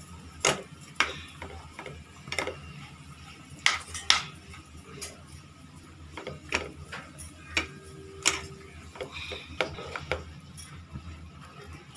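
Boiled potatoes with spices being mashed in a cooking pan: irregular knocks and clacks of the utensil against the pan, about one or two a second.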